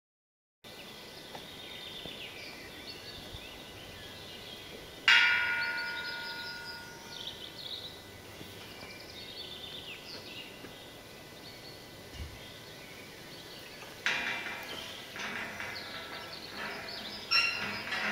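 Galvanized steel sheep hurdle panels being handled and joined: a sharp clang about five seconds in that rings on for a couple of seconds, then a run of rattling knocks and another clang near the end. Birds sing in the background.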